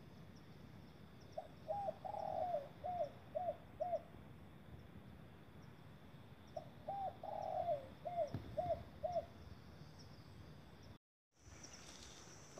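A dove cooing two phrases a few seconds apart. Each phrase is a couple of short coos, a longer rolling coo, then a few more short coos, heard over faint steady background hiss.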